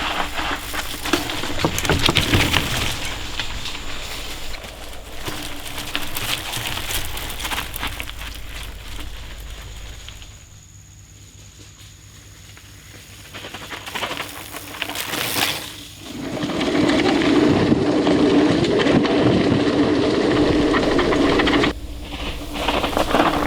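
Mountain bike ridden fast over a dirt cross-country trail: tyre noise with rattling and clicking from the bike. It is quieter for a few seconds in the middle, then a louder rumbling stretch starts and stops abruptly.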